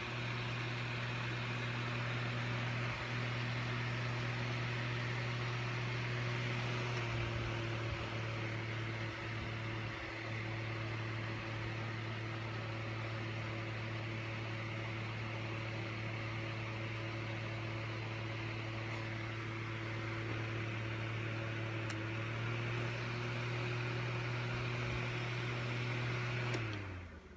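Electric fan running with a steady hum and whoosh, its tone shifting slightly about seven seconds in. Near the end it is switched off with a click, and the hum falls in pitch and fades as the fan winds down.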